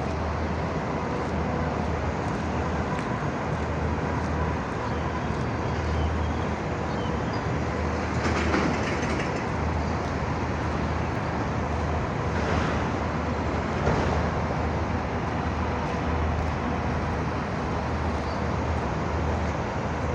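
Steady city ambience: a continuous low rumble with a constant hum underneath. There are a few louder swells of noise, the strongest about eight seconds in and two more around twelve and fourteen seconds.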